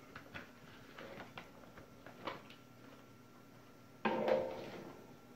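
Faint scattered clicks and light handling noises from work on a bare switching power supply board and its mains cord, then a louder sudden knock and rustle about four seconds in that fades over about half a second. A faint steady high whine runs underneath.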